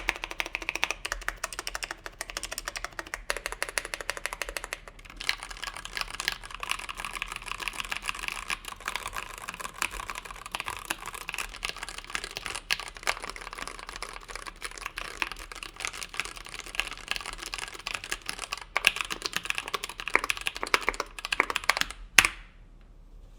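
Fast typing on a 60% mechanical keyboard with lubed NovelKeys Cream linear switches on a brass plate in an aluminum Tofu case, with PBT keycaps: a rapid, near-continuous stream of keystrokes. It ends about 22 seconds in with one louder stroke, then the typing stops.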